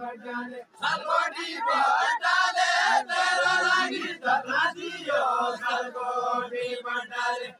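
A group of men singing a Deuda folk song together in a chanting style, with long held notes. There is a short break under a second in, then the singing comes back louder.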